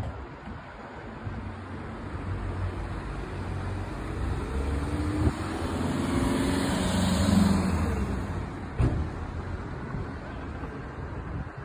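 A motor vehicle passing close by: its engine and tyres grow louder, peak about seven seconds in, then fade, the engine note dropping in pitch as it goes past. Two sharp knocks sound, one just before the peak and one just after.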